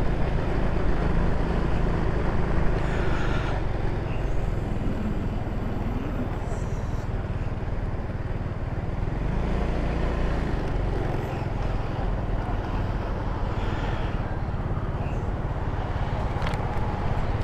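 Ice Bear Hawkeye scooter's GY6 150cc single-cylinder four-stroke engine running at a steady pace while riding, a low, even drone.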